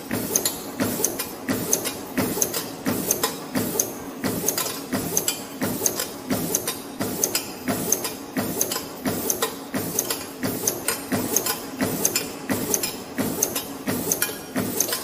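YHM PR-24 CNC piston ring and wave spring machine running, forming flat wire rings. It clatters in a steady cycle of sharp clicks and knocks, a little over once a second.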